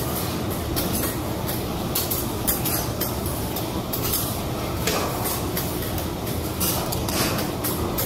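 Steel spatulas clattering and scraping on a teppanyaki griddle as shredded cabbage is chopped and tossed: quick, irregular metal strikes over a steady low rumble.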